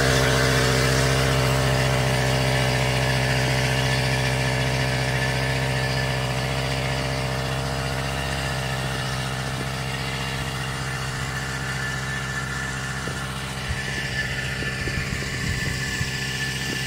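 Small drone's electric motors and propellers humming steadily, one unchanging pitch with overtones over a high hiss, slowly getting quieter. A few soft bumps near the end.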